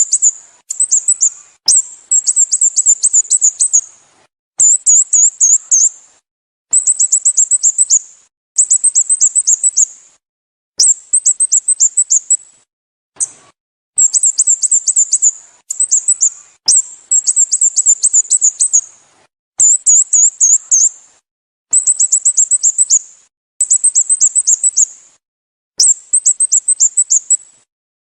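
Sooty-headed bulbul (Pycnonotus aurigaster) calling in a rapid, high-pitched series. Short bursts of quick descending notes, each burst about one to two seconds long, come again and again with brief pauses between them.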